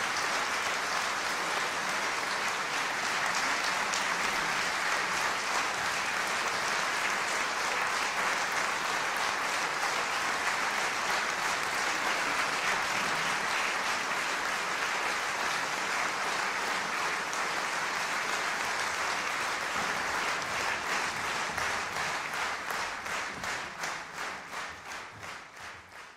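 Concert audience applauding steadily. Toward the end the clapping falls into a rhythmic unison beat, about three claps a second, and fades out.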